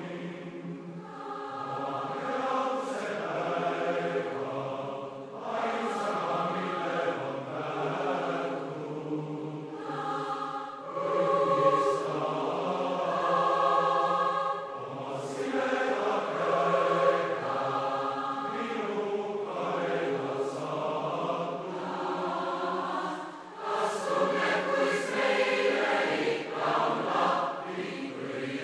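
A choir singing in harmony, in long phrases with brief breaks between them.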